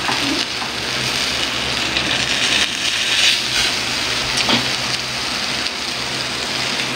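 Fish and eggplant sizzling steadily on the hot grill plate of an Imarflex 8-in-1 electric griller, with occasional faint crackles.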